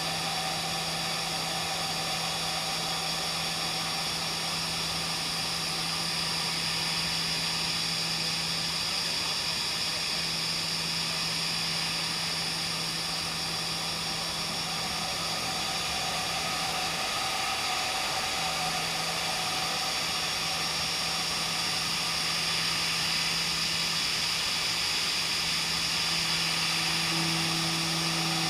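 CNC machining centre milling H13 tool steel: the spindle runs at a constant speed with a steady hum and a high whine over the cutting noise, and a second, higher hum joins near the end.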